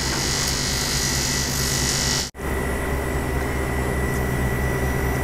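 Electric arc welding on a cracked aluminium alloy wheel rim: a steady hiss over a low hum. The sound cuts out for an instant about two seconds in, then goes on steadily with less hiss and a thin high whine.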